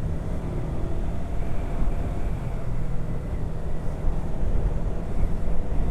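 Yamaha R3's 321 cc parallel-twin engine running steadily at low speed, heard from the rider's helmet mic with wind and road rumble. The rider is unsure whether the engine has developed a new noise and vibration.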